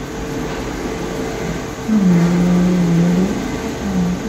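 Steady hum of room air conditioning. About two seconds in, a drawn-out, level-pitched "hmm" from a man's voice is heard over it.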